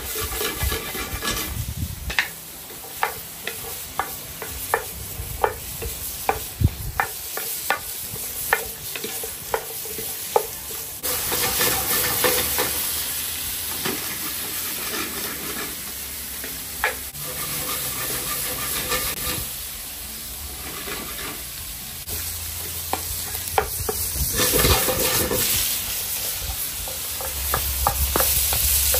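Carrots and asparagus sizzling as they sauté in hot pans over an open wood fire, with a wooden spatula stirring and knocking against the pan over and over. The sizzle grows louder about a third of the way in.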